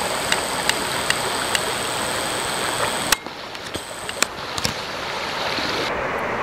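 Steady rush of a fast-flowing river over rapids. A thin high whine and a few sharp clicks run over it until about three seconds in, where the sound changes abruptly, and it shifts again near the end.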